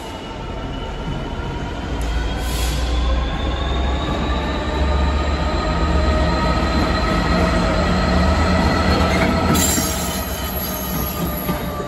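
Class 66 diesel-electric locomotive running light past at low speed, its two-stroke V12 diesel engine giving a deep rumble that swells about two seconds in. High whining tones ride over the rumble, rising slowly and then dropping near the end as it goes by.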